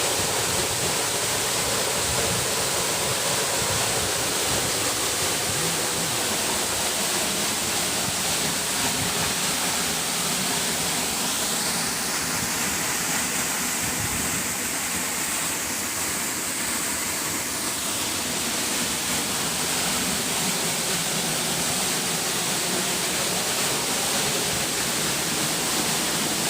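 Waterfall: water falling and rushing in a steady, loud, even roar.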